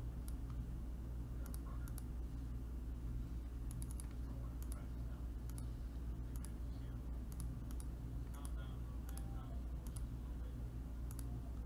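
Scattered sharp clicks of a computer mouse and keyboard being used, over a steady low hum.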